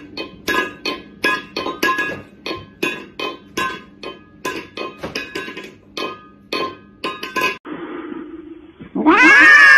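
A metal pet bowl clanking again and again on a hard floor as a cat paws at it and tips it, each knock ringing briefly, about two or three a second. Near the end a cat lets out a loud, drawn-out yowl that rises in pitch.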